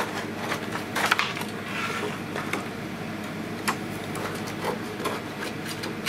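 Knife trimming thin clear plastic film around the edge of a clear plastic keypad frame: irregular scraping and crinkling with many small clicks and taps as the film is cut and the frame is handled, over a steady low hum.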